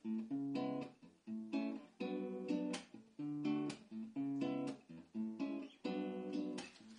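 Acoustic guitar strumming a rhythmic chord pattern, played as a song intro.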